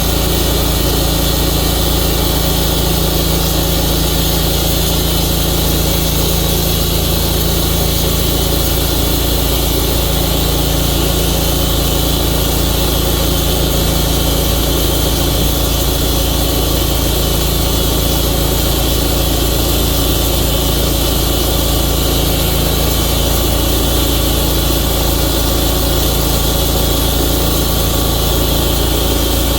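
Tru-Cut sawmill's engine running steadily at an unchanging pitch.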